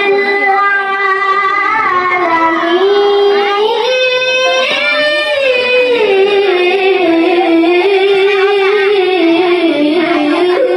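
A boy's voice reciting the Quran in melodic tilawah style, with long held notes and ornamented glides. He climbs to a higher note about four seconds in, then comes back down in steps.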